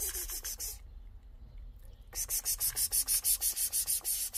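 A cat crunching dry kibble, chewing in quick crisp bites about six a second. The crunching stops about a second in, then starts again after a pause of about a second and a half.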